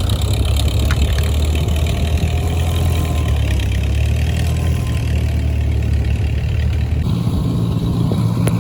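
The carbureted engine on a New Holland baler running after sitting about twenty years, missing a little. Its note shifts up about seven seconds in.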